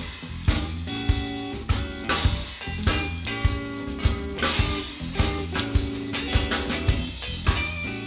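Live band playing an instrumental passage: a drum kit keeps a steady beat with cymbals, under two electric guitars.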